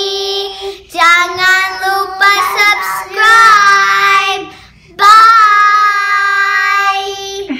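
A boy and a girl singing together in unison: a few short sung phrases, a brief pause, then one long held final note.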